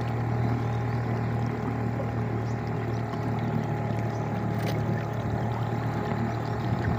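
Small boat's motor running at a steady speed, a continuous low drone as the boat moves through floodwater.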